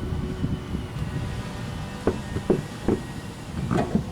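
A few short, sharp knocks, four of them in the second half, over a steady low rumble, as the front wheel is being fitted back onto the truck's hub.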